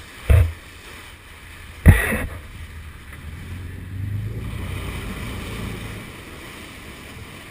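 Two sharp thumps about a second and a half apart. Then a boat backing down in reverse: a low engine rumble swells and water churns and splashes at the stern before easing off, with wind on the microphone.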